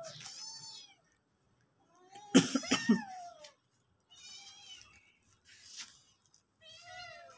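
Several cats and kittens meowing one after another, a handful of separate meows with the loudest about two and a half seconds in. The meows are typical of hungry cats begging for food.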